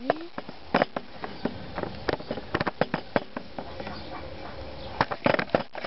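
Handling noise from a handheld camera: irregular clicks and knocks, several a second, over a steady hiss.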